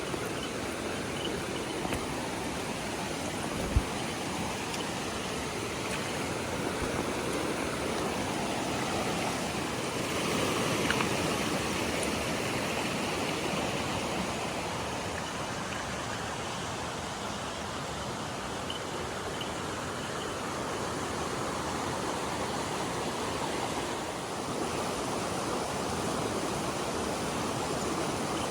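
River water rushing steadily over rocks. A single brief thump about four seconds in.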